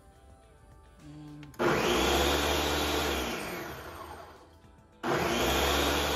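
Electric countertop blender run in two bursts: the motor starts about a second and a half in, runs for a couple of seconds and spins down, then starts again near the end. It is blending kale with orange juice and water.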